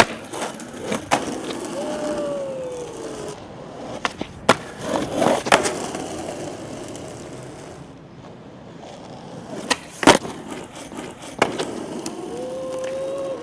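Skateboard urethane wheels rolling over rough asphalt, broken by several sharp wooden clacks of tail pops and landings. The metal trucks grind along a concrete curb with a brief squealing tone, twice.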